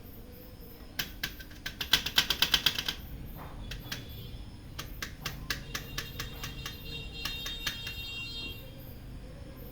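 Cleaned rotating drum-area part of a Toshiba e-STUDIO 2523AD photocopier being turned by hand, its gears clicking rapidly, about ten clicks a second, in two runs, with a faint high ringing squeak during the second run. The part now turns freely after dirt that had jammed it, the cause of the machine's noise, was cleaned out.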